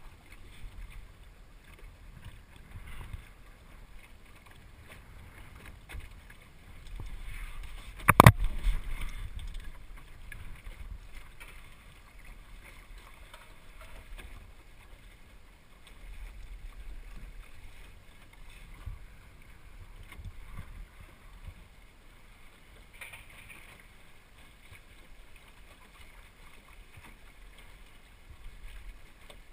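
Water lapping and splashing against a small sailing dinghy's hull, with a faint wind rumble. One sharp, loud knock about eight seconds in.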